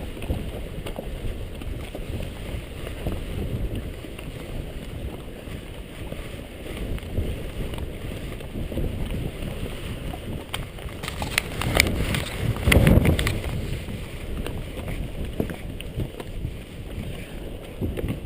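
Strong wind buffeting the microphone in gusts, rumbling and crackling, loudest in a gust about two-thirds of the way through.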